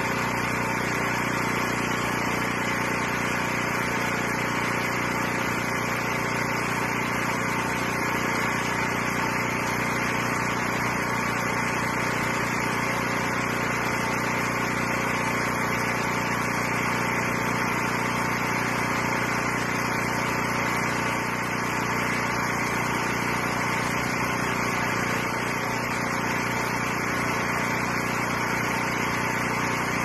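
An engine running steadily at a constant speed, an even mechanical hum over a broad hiss with no change in pitch or loudness.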